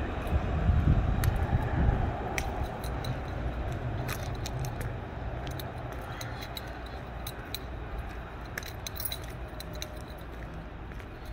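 A tram passing with a low rumble that is loudest in the first two seconds, then fades into a steady street hum. Scattered small clicks close to the microphone run throughout.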